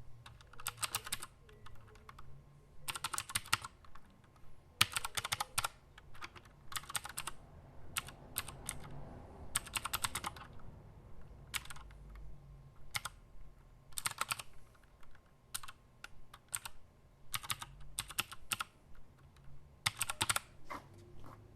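Typing on a 60% mechanical keyboard with Cherry MX Blue switches: runs of sharp key clicks in quick bursts with short pauses between them.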